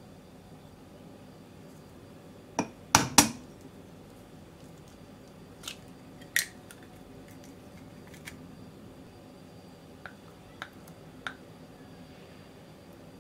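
Scattered sharp clicks and crackles of hard-boiled eggshell being cracked and peeled off by hand, with small taps on a plastic cutting board; the loudest is a close pair about three seconds in, then a few lighter clicks spread through the rest.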